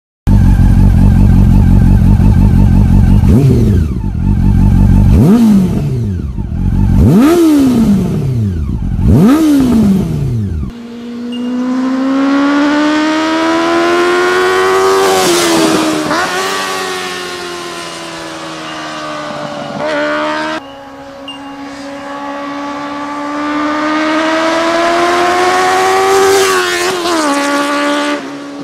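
Honda CB400 inline-four motorcycle engine. It is revved four times in quick blips, each note shooting up and falling back. Then it pulls away and runs up through the gears, its pitch climbing steadily and dropping at each shift.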